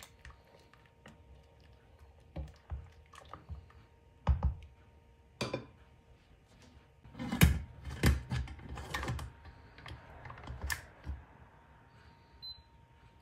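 Scattered metal clanks and clicks as an Amazon Basics pressure cooker's lid is set on its pot and locked closed, with the loudest clanks about seven to nine seconds in.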